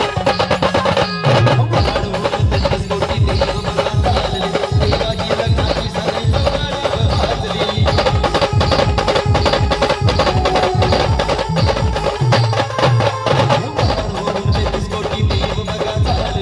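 Maharashtrian band party playing loud music: a held brass melody over a steady beat on the drums.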